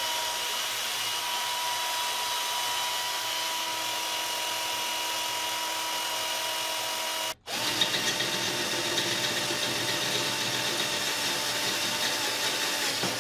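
A 12 V BR Motors cordless drill/driver runs under load, driving an 8 mm high-speed-steel bit into a steel tube. It gives a steady motor whine that drops out for a moment about seven seconds in, then starts again.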